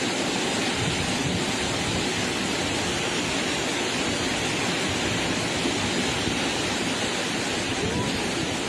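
Floodwater rushing steadily in a loud, unbroken torrent.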